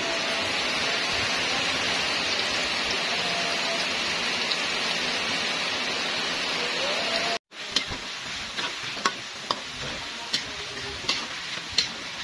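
Melinjo skins deep-frying in hot oil in a wok, a dense steady sizzle. About seven seconds in the sound cuts out briefly and comes back quieter, with a few sharp clicks of a metal spatula against the wok as the skins are stirred.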